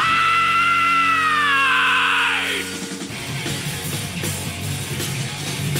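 A male rock singer's high held yell: the voice shoots up, holds one long note, then slides down and breaks off about two and a half seconds in. A heavy rock band plays beneath it, with drums and guitars carrying on after the yell.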